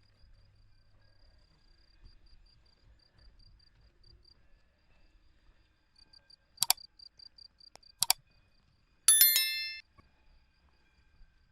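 A faint, high insect chirp pulsing evenly throughout. Past the middle come two sharp clicks about a second and a half apart, then a loud bell-like metallic ring with several tones that fades within about a second.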